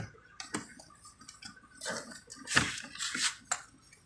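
Scattered light clicks and metallic clinks of small tools and parts being handled during wiring work, with a louder brief scrape about two and a half seconds in.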